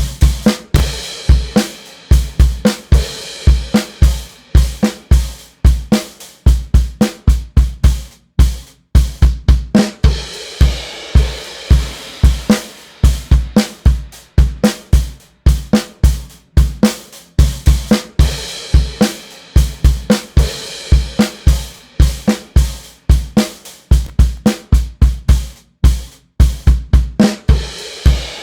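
Recorded drum kit playing a steady rock beat with snare, hi-hat and cymbals. The kick drum is run through the Sphere Eclipse C console's 823 EQ, boosted and high-pass filtered at 50 Hz, which gives each kick a heavy low end.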